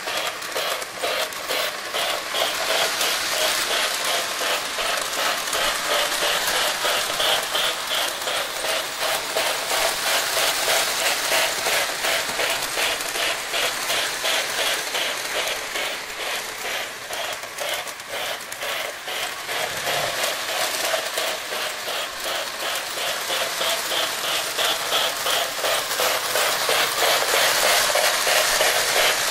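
Lionel O-gauge Chicago & Alton Hudson locomotive and six passenger cars running on FasTrack track, a steady mechanical running noise with rapid clicking and rattling of wheels over the track. It fades somewhat partway through and swells again near the end as the train circles.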